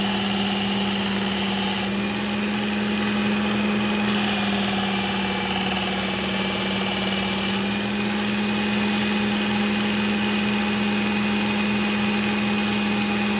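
Work Sharp Ken Onion belt sharpener running with a steady motor hum, its fine cloth belt dressed with polishing compound. A knife edge is drawn across the belt in passes, so a hiss of blade contact comes and goes: through about the first two seconds, then again for a few seconds from about four seconds in. This is the polishing stage of sharpening.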